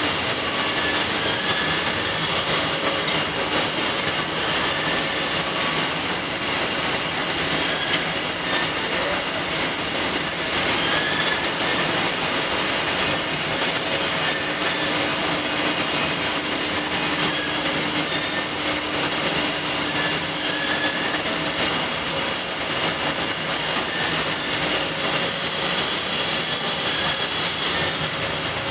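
Heavy belt-driven lathe running and cutting steel as it turns a large cylinder. A steady high-pitched metallic whine sits over dense, even machining noise.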